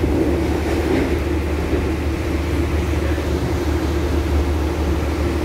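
Steady rumble of a moving passenger train heard from inside the carriage, with no breaks or distinct knocks.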